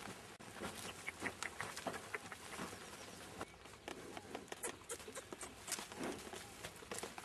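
Yoked pair of oxen plodding over tilled soil: irregular soft footfalls and scuffs.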